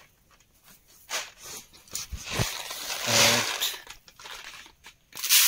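Raw rice scooped with a bowl out of a woven plastic sack: the sack rustles and crinkles and the grains crunch, in bursts, loudest a little past three seconds in and again near the end.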